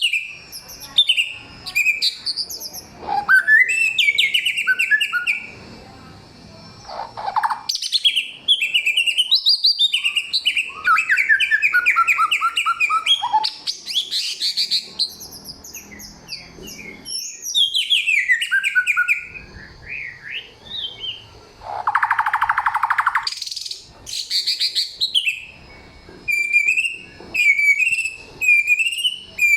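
A samyong songbird singing a loud, varied run of whistled phrases, trills and quick chatters, changing pitch from phrase to phrase with short pauses between. About 22 seconds in comes a harsher buzzy call. The string of different phrases is the mimicked 'forest material' of a many-voiced songbird.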